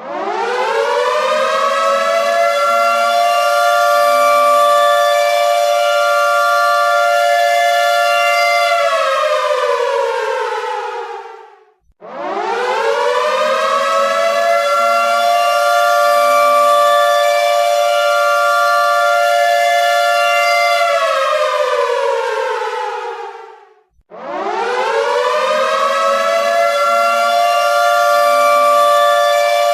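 Air raid siren winding up, holding a steady wail of two close notes, then winding down and dying out. The cycle repeats about every twelve seconds, starting again about twelve and twenty-four seconds in.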